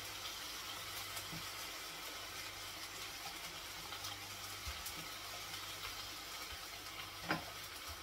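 Tortellini in a garlic and sour-cream sauce sizzling steadily in a frying pan while sour cream is spooned in, with one sharp tap a little after seven seconds in.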